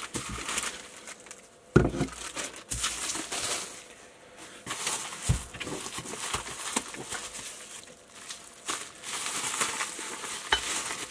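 Plastic packaging crinkling and rustling as it is handled, with scattered clicks and knocks and one sharper knock about two seconds in.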